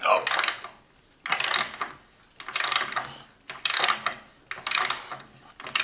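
Hand ratchet wrench from a budget socket set clicking through its back strokes as it turns a hex-head screw in wood. About five short bursts of rapid pawl clicks, roughly one a second, with quiet drive strokes between.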